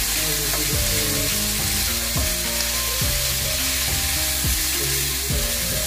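Beef pieces sizzling steadily as they fry in coconut oil in a nonstick pan, stirred with a wooden spatula.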